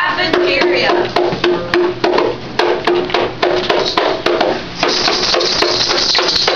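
Music with a steady percussive beat of sharp clicks, about four a second, over a repeating held note; a high hissing layer joins about five seconds in.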